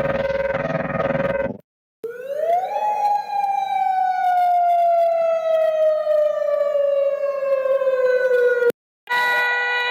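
Emergency alert alarm tones. A steady buzzy tone cuts off about a second and a half in. After a short gap a siren-like tone sweeps up quickly, then slides slowly down for about six seconds and stops. A steady harsh multi-tone alarm begins just before the end.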